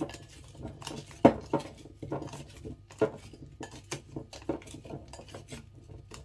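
Silicone-tipped kitchen tongs tossing raw potato wedges in a glass bowl: irregular knocks and clinks of the tongs and potato pieces against the glass, the loudest about a second in.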